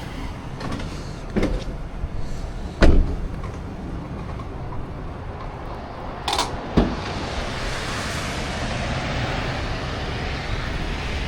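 Car doors clunking and thumping a few times, the loudest about three seconds in and two more near six and seven seconds. Afterwards a steady hiss of heavy rain and wind from the storm outside grows louder.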